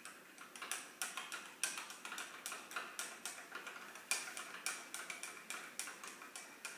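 A spoon stirring a runny mixture in a cup, clinking against the sides about three times a second in a steady rhythm.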